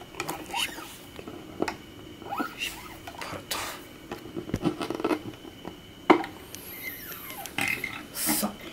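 A classical guitar's nylon sixth string is pulled through and knotted at the bridge. The string rubs and squeaks against the bridge and fingers, with scattered light clicks and taps and one sharp click about six seconds in.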